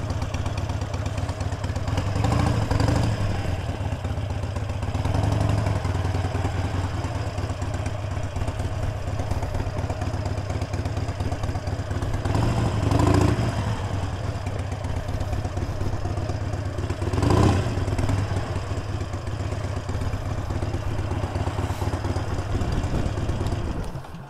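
Motorcycle engine running steadily while being ridden, with road and wind noise. It swells briefly louder four times, then drops away abruptly at the very end.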